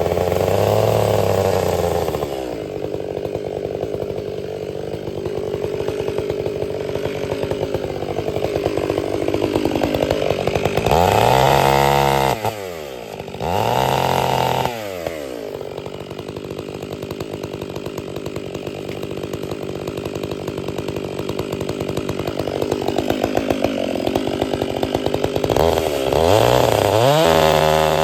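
Two-stroke chainsaw running, its engine revved up and let back down several times: about a second in, twice around the middle, and again near the end. In between it runs steadily at lower revs.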